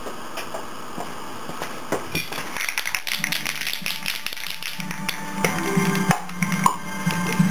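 Spray paint can being shaken, its mixing ball rattling in quick clicks. Background music comes in about three seconds in.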